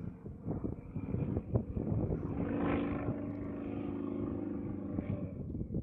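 Sukhoi Su-26's nine-cylinder radial engine and propeller in aerobatic flight. The note is uneven for the first couple of seconds, then holds a steady pitch from about two seconds in.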